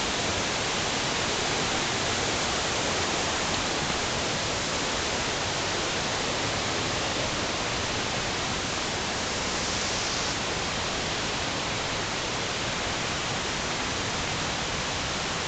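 Rushing water of a waterfall and its stream: a steady, dense hiss with no breaks.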